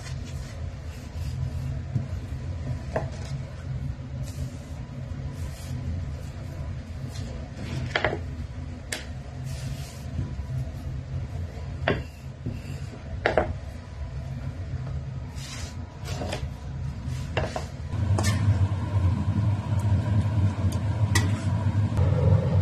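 Wooden rolling pin rolling out flatbread dough on a wooden board, a soft rubbing with scattered sharp knocks of the pin against the board, over a steady low hum. About eighteen seconds in, the low hum grows louder.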